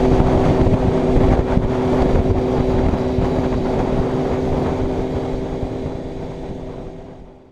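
Motorcycle engine running at steady cruising revs, with wind rushing over the microphone, fading out over the last couple of seconds.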